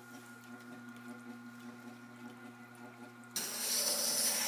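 Tormek wet grinder's motor humming steadily, then about three and a half seconds in a steel jointer blade held in a jig is pressed onto the turning wet grindstone: a sudden, loud, steady grinding that carries on to the end.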